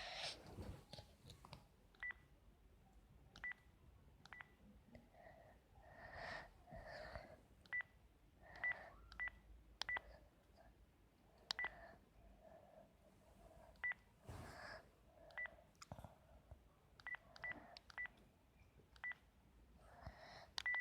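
Cordless phone handset's keypad beeping as its buttons are pressed: about sixteen short key-press beeps, all at the same pitch, at irregular intervals, with soft rustles between them.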